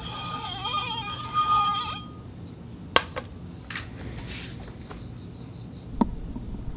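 Glass cup clinking: a few separate sharp clinks, the two loudest about three and six seconds in. Before them, steady ringing tones with a wavering pitch cut off abruptly about two seconds in.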